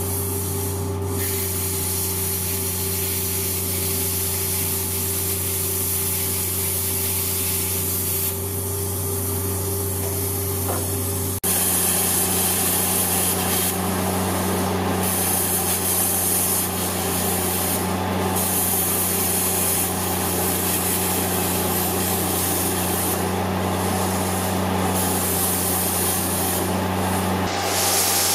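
Plasma cutter cutting through welds in rusted steel hull plate: a steady hiss of the arc and air jet over a low hum. The hiss thins out briefly several times, and the sound steps up in loudness about eleven seconds in.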